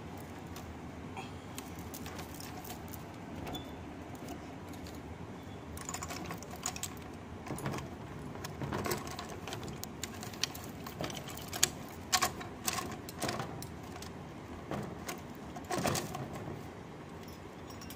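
Bangles clinking against one another and the iron grille bar as they are pushed along it: scattered light clicks and jangles, sparse at first and coming thick in the second half, over a steady low background hiss.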